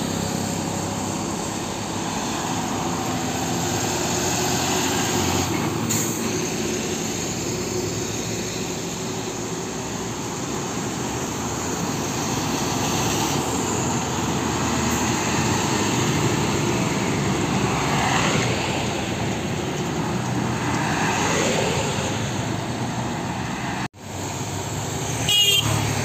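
Highway traffic, trucks and other vehicles passing one after another, with a horn honking near the end. The sound cuts out for an instant just before the horn.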